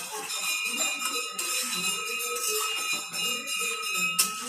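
Bell-like ringing of several steady high tones with a jingling shimmer, lasting about four seconds and cutting off suddenly, over the scrape of a spatula stirring food in a metal pan.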